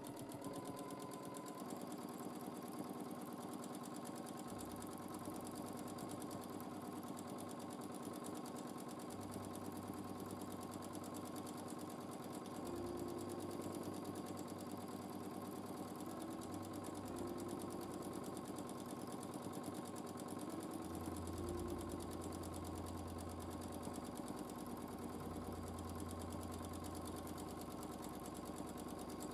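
Domestic sewing machine running continuously during free-motion quilting, the needle stitching at a steady fast rate, with a low motor hum that swells and drops a few times.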